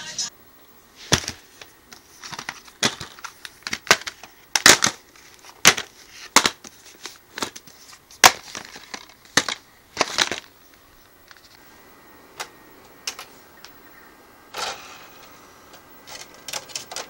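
Irregular sharp clicks and clacks of plastic DVD cases being handled and snapped open, with a disc being pushed into a player near the end.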